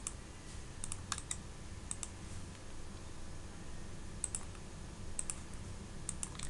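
Computer mouse clicking: about six short, sharp clicks, most heard as a quick press-and-release pair, spaced a second or so apart, over a faint low hum.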